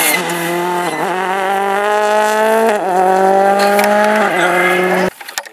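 Ford Fiesta rally car engine at full throttle, its pitch climbing through each gear, with quick upshifts about every one and a half seconds. The sound cuts off suddenly near the end.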